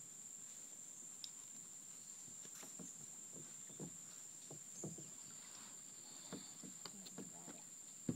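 A steady high-pitched insect drone, with scattered soft taps and knocks and one sharper click near the end.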